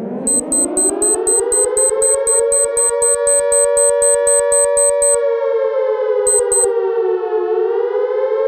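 A siren wail sound effect winds up from a low pitch over about two seconds and holds, dipping and climbing again near the end. Over it a rapid, high electronic beeping runs at about four beeps a second, stops about five seconds in, and comes back briefly a second later.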